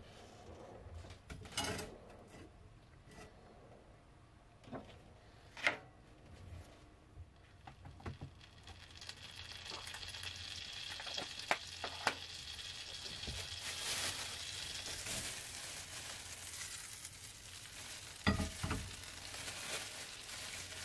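Butter melting in a frying pan over a gas burner, its sizzle building from about eight seconds in and then holding steady. A few sharp knocks come in the first six seconds and one more near the end.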